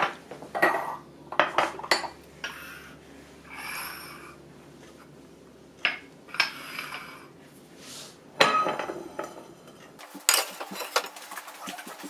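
Small bowls and a glass jug being moved, slid and set down on a granite worktop: scattered clinks and knocks with a few scraping swishes. About two seconds before the end the background changes and a quicker run of light clinks and taps follows.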